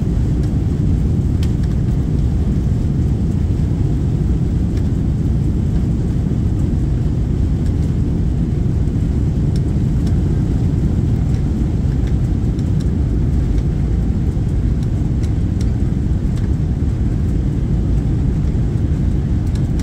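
Steady low roar inside a jet airliner's cabin during the takeoff roll, with the engines at takeoff thrust and the wheels rolling down the runway.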